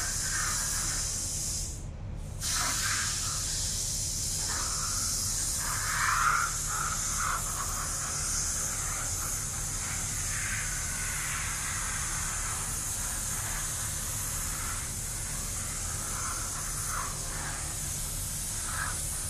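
Gravity-feed compressed-air paint spray gun hissing steadily as the trigger is held, with a brief stop about two seconds in when the trigger is let go. A steady low hum runs underneath.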